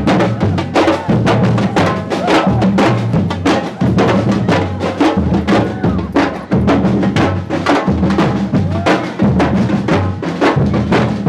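Music with a steady, busy drum beat and a bass line that steps between notes.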